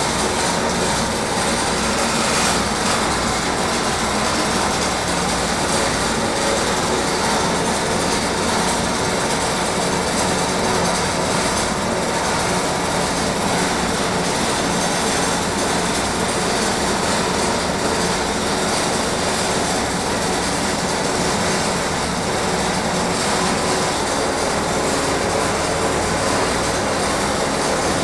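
A steady, even rushing noise of a machine running, with no strikes, pauses or changes in level.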